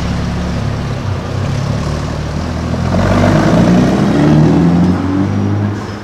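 Aston Martin DB5's straight-six engine idling steadily, then revving up through a rising pitch about halfway in as the car pulls away, and growing fainter near the end.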